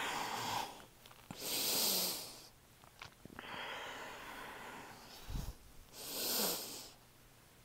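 A woman breathing slowly and audibly in and out in long airy breaths, about three breaths over several seconds, two of them sharper and hissier. A soft low thump comes about five and a half seconds in.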